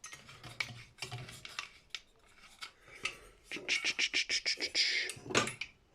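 Metal clicking and scraping as a threaded brass part of a light fitting is turned and worked loose by hand, with a quick run of clicks and rasping in the last couple of seconds.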